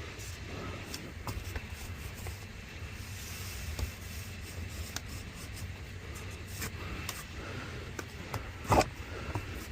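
Steady low rumble of a vehicle heard from inside, with scattered light clicks and rubbing noises and a sharper knock near the end.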